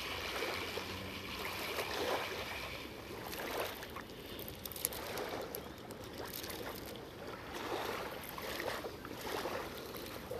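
Small waves washing and lapping at the water's edge, swelling and easing every second or two.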